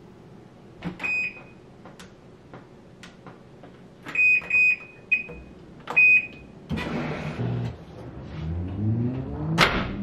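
Washing machine control panel beeping as its buttons are pressed: one short high beep about a second in, then four quick beeps between four and six seconds. Then a burst of noise and a motor hum rising steadily in pitch as a machine starts up, with a sharp click near the end.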